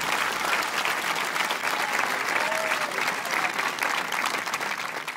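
Concert audience applauding, a dense steady clapping from many hands with a few faint cheers in it, dying down slightly near the end.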